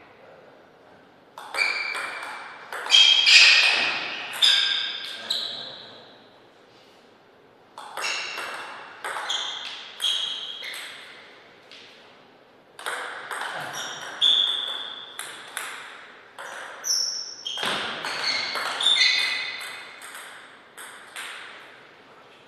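Table tennis rallies: the plastic ball clicking back and forth off paddles and the table in quick strikes, each with a short ringing ping. There are four rallies, each a few seconds long, separated by pauses of one or two seconds.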